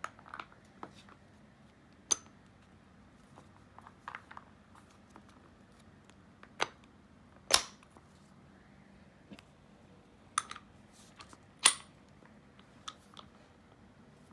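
Heavy steel impact tooling clicking and clanking as a 1-inch drive universal joint and deep impact socket are fitted onto an impact wrench. A string of irregular sharp knocks, the loudest about halfway through and near the end.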